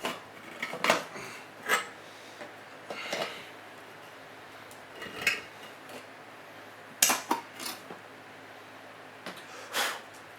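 Irregular metallic clinks and clatters, about eight in all, from a surplus 7.62x54R ammo can and its contents being handled as it is opened.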